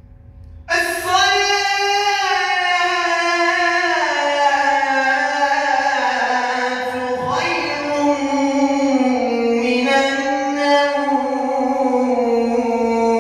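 A young man's solo voice reciting the ezan, the Islamic call to prayer, into a handheld microphone: long melismatic phrases in the uşşak makam with a passage into saba. The voice comes in suddenly about a second in and holds slowly gliding, ornamented notes, with a brief break about seven seconds in.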